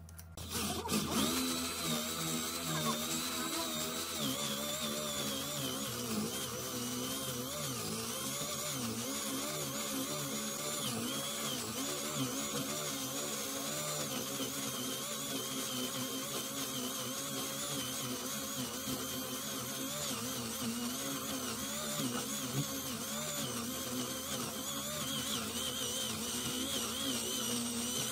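Corded electric drill boring into a solid wood slab with a large wood bit, starting about half a second in. The motor runs under load, its pitch wavering as the bit bites and clears chips.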